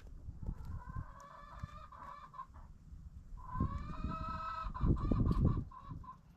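A chicken calling twice, each a long drawn-out pitched call of about two seconds, the second starting about three and a half seconds in. Irregular low thumps run underneath.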